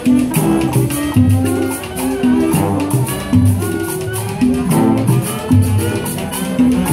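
Marching band playing a Latin, salsa-style tune: a repeating bass line under held melody notes, driven by a steady percussion beat.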